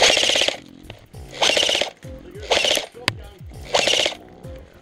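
Airsoft electric support machine gun firing on full auto: four short rattling bursts of about half a second each, a second or so apart.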